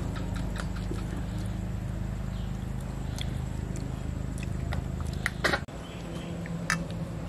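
Eating by hand from steel plates: scattered small clicks and taps of fingers mixing rice against the metal, over a steady low hum, with a brief louder clatter a little after five seconds.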